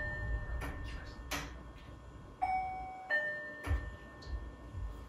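Two-note door intercom chime, a higher note then a lower one, signalling a visitor at the door. The lower note of one chime rings on at the start, and a full chime sounds about halfway through. A few sharp clicks or knocks fall in between.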